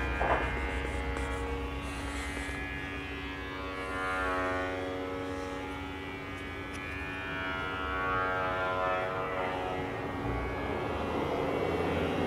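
A passing engine's steady drone, several tones together whose pitch slowly sinks and rises again. A brief click sounds just after the start.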